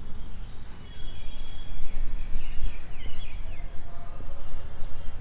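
Outdoor ambience with a steady low rumble, and birds chirping in short falling calls about a second in, followed by a few brief tonal calls near the end.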